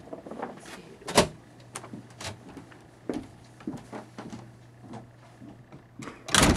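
Footsteps and door knocks as a person walks out through a door: scattered thumps and clicks, a sharp one about a second in and the loudest near the end.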